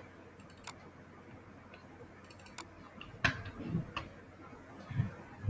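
Scattered computer mouse clicks, a handful of sharp ticks, the loudest about three seconds in, with a few soft low thumps after it.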